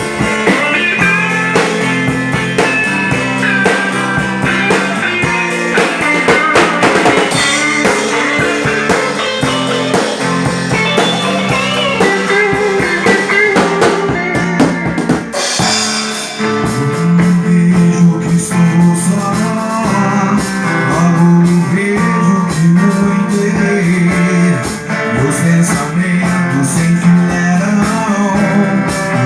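Band music with guitar and drums playing, its sound changing briefly about halfway through.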